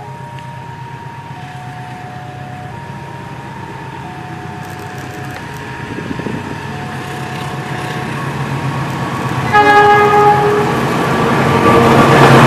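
GE CC206 diesel-electric locomotive approaching with a low engine rumble that grows steadily louder, under a two-note warning tone that alternates high and low for the first several seconds. About two thirds of the way in the locomotive sounds one horn blast of about a second, the loudest moment, and near the end it rushes past close by in a loud wash of engine and wheel noise.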